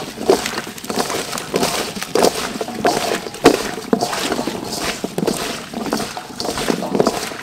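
Hands rubbing and squeezing salted, wet pieces of chopped cactus in a stainless steel bowl: an uneven run of crunches, crackles and rustles as the pieces are worked against each other and the metal.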